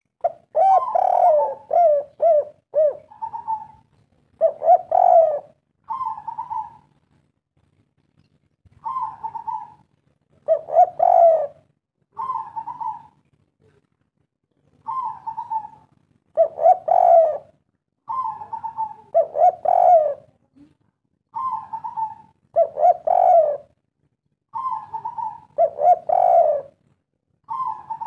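Spotted dove cooing its three-syllable 'kuk 3' song over and over: a higher note, then a louder, lower rolling coo, each phrase followed by a short pause.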